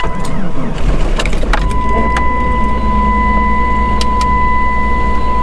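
1996 Jeep Grand Cherokee ZJ engine running just after a cold start in freezing weather, with a few sharp clicks in the first two seconds before it settles into a steady idle.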